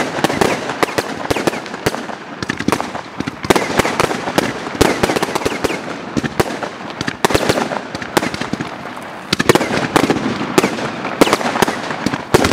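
Fireworks going off: a dense, rapid string of sharp cracks and bangs with a crackle between them, from shells and comets launching and bursting.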